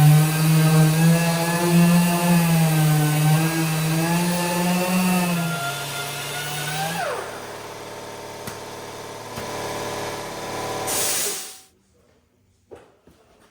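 Air-powered sanding tool running with a steady whine whose pitch wavers under load, then spinning down about seven seconds in. A hiss continues and cuts off near the end, leaving a few faint clicks.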